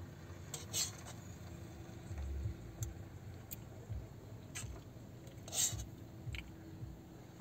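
Metal spoon clinking and scraping in a stainless steel pot, heard as half a dozen short, sharp clicks spread out, the loudest about five and a half seconds in.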